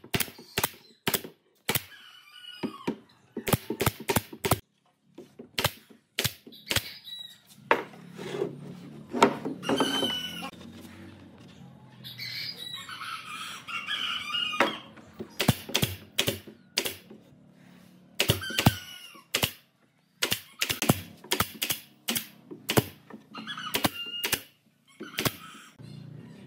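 Pneumatic nail gun firing nails into wooden boards: sharp single shots, irregularly spaced and sometimes in quick runs of two or three.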